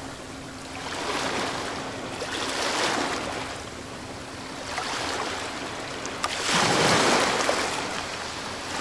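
Water waves washing in slow swells, one every couple of seconds, with the loudest swell about two-thirds through. A faint steady hum lies under it and stops partway.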